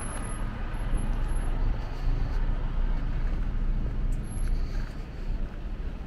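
Steady low rumble of city street traffic heard while walking.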